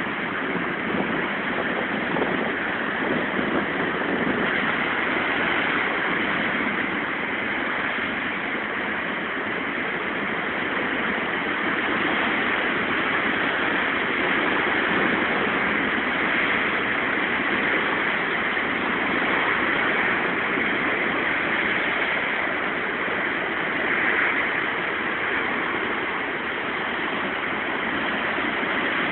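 Heavy surf on a rough sea: waves breaking over rocks and washing across a seafront walkway, a continuous rushing noise that swells and eases slightly.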